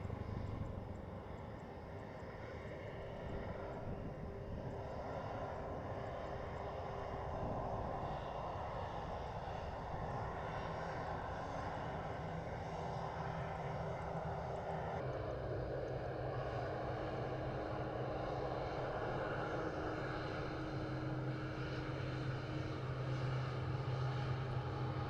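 Jet airliner engines running: a steady roar with a low hum, whose tone shifts suddenly about halfway through.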